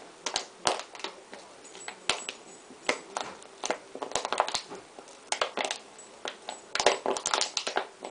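Plastic bottle inside a plush dog toy crackling and crunching in irregular bursts as a dog chews and mouths it. The crackles are densest around the middle and near the end.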